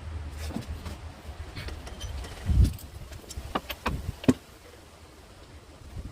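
A heavy thud, then several sharp metallic clicks and clinks, over a low steady hum that fades about four and a half seconds in.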